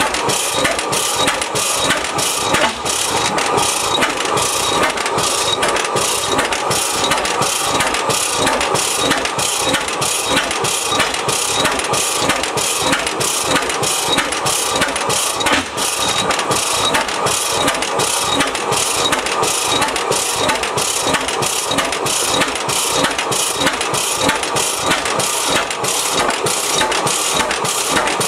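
A 1905 Reid 15-horsepower two-cycle hot-tube oilfield engine running steadily, its single cylinder firing in an even beat of exhaust strokes.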